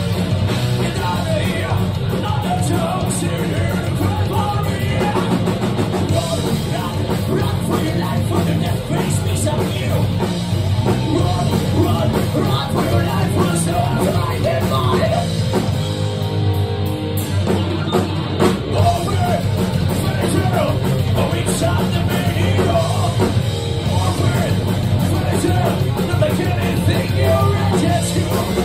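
Thrash metal band playing live, with distorted electric guitars and a drum kit under shouted, sung vocals, heard loud through a phone's microphone.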